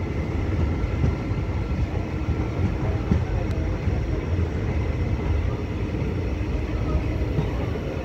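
Passenger train rolling along a station platform, heard from the doorway of a moving coach: a steady low rumble of running noise with no distinct clacks or horn.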